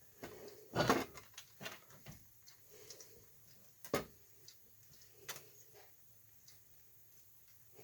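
Scattered metal clicks and knocks of hand tools working on a differential part, the loudest about a second in and about four seconds in.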